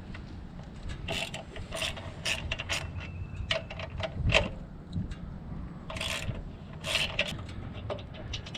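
Ratchet wrench with an 11/16 socket clicking in repeated short back-and-forth strokes as a bolt is loosened.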